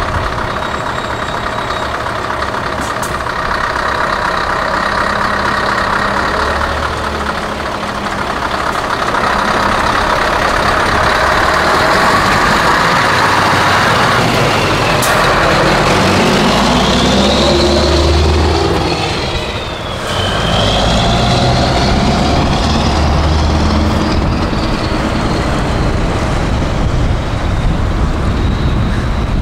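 Scania T500 V8 truck engine running loud through open straight-pipe exhaust stacks. The engine note rises and falls in the second half, with a short drop in loudness about 20 seconds in.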